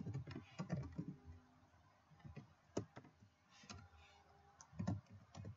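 Typing on a computer keyboard: a quick run of key clicks in the first second or so, then a few single keystrokes spaced apart.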